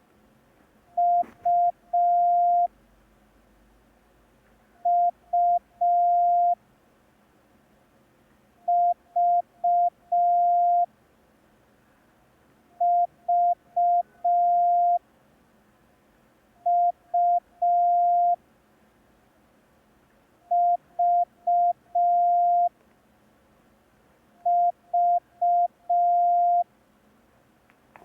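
Morse code practice tone, a single steady pitch near 700 Hz keyed on and off, sending seven letters from the A, U, V drill, each a few short dits ending in one long dah, spaced about four seconds apart for the listener to copy.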